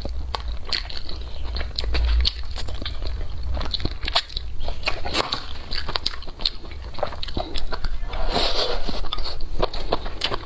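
Close-miked chewing and biting of crisp food, a quick run of sharp crunches, with a denser crunching patch near the end.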